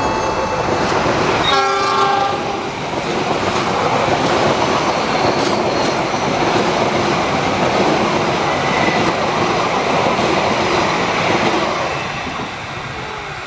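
Kaligung passenger train's carriages rushing past close by, a dense, steady rumble and rattle of wheels on rail that fades near the end as the last cars go by. A short horn blast sounds about a second and a half in.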